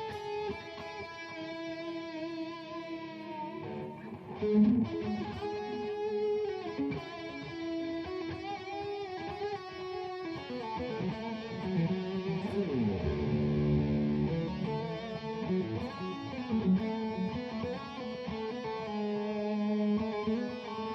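Ibanez J.Custom RG8520GE electric guitar played as a warm-up: a run of held melodic notes, with falling sliding notes about twelve seconds in.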